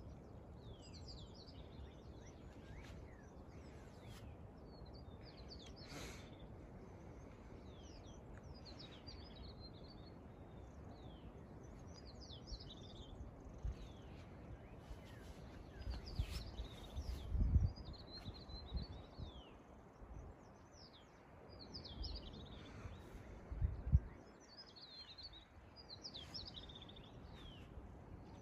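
Wild birds chirping and singing, many short, quick, falling calls one after another, over a faint steady outdoor hiss. A few brief low thumps come about two-thirds of the way in and again a little later.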